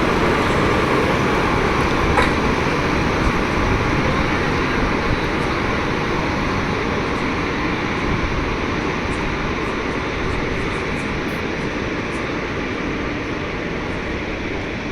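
Passenger train of ICF coaches rolling past on the rails, a steady rumble of wheels on track that slowly fades.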